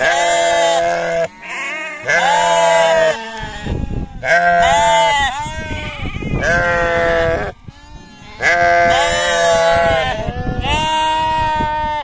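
Several sheep bleating loudly, about six long calls one after another with short gaps between, some overlapping, each call arching up and down in pitch.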